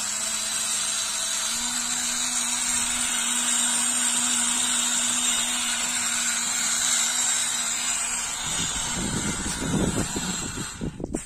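Small electric motor and gearbox of a homemade RC model truck whining steadily, its pitch stepping up slightly about one and a half seconds in. The whine stops about eight seconds in and gives way to irregular rumbling and knocks.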